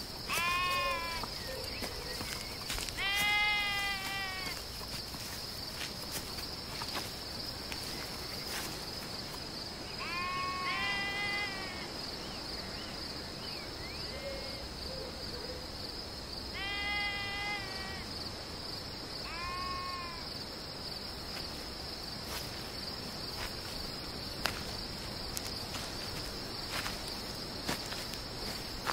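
Sheep bleating, about five separate calls in the first twenty seconds, over a steady high-pitched chirring of crickets.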